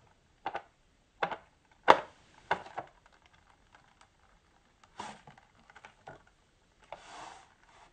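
Sharp plastic taps and clicks as a wide boba straw is jabbed at the sealed plastic film lid of a bubble tea cup, the loudest about two seconds in, with a short rustle near the end.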